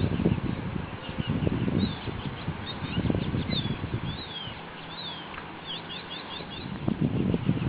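Small birds chirping in quick series of short sweeping chirps over a low rustling, knocking noise, which eases off in the middle.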